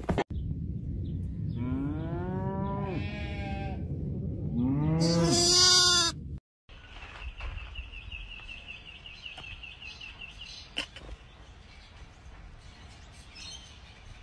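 Two long animal calls, each rising then falling in pitch, the second louder. After a short break, a faint, high warbling tone holds for a few seconds.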